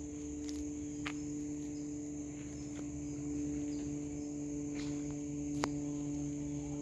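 Insects trilling steadily in a continuous high chorus, over a steady low hum, with a few faint clicks and one sharp click a little before the end.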